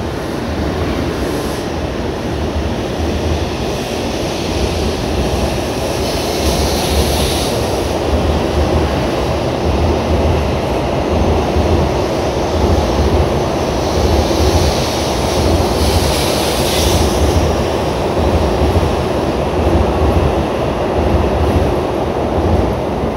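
N700A Shinkansen train pulling out of the station, its cars rolling past at gathering speed with a steady rumble that grows slightly louder. Two brief hissing swells come through, about 6 and 16 seconds in.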